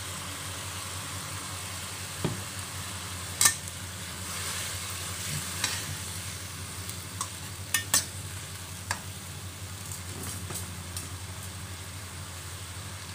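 Sprouted soybeans and shrimp stir-frying in a stainless steel wok with a steady sizzle, while a metal spatula scrapes through them and clinks sharply against the pan several times.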